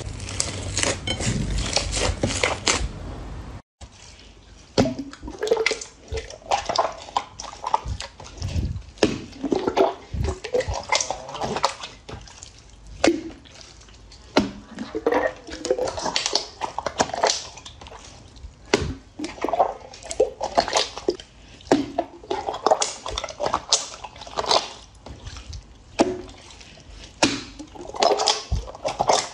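For the first few seconds, foamy blue slime crackles as it is kneaded by hand. After a sudden break, glossy slime is pressed and squeezed by hand, giving irregular clusters of wet squelches, clicks and pops every second or so.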